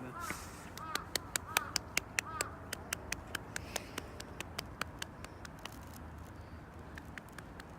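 A crow cawing four times in short arched calls. Over them comes a quick run of sharp clicks or taps, about four or five a second, which are the loudest sounds and fade out after a few seconds.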